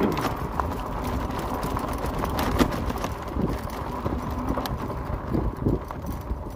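Fat-tire electric bike rolling over loose gravel and sand: tyre crunch and rumble with many irregular rattling clicks, the jangle of an empty handlebar phone mount shaking on the rough track.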